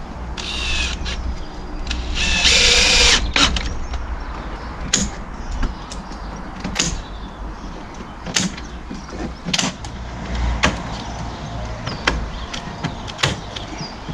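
Cordless drill/driver run in two short bursts into a wooden batten on the shed, the second longer and louder, about two seconds in. After that comes a series of sharp clicks and knocks, about one every second or so.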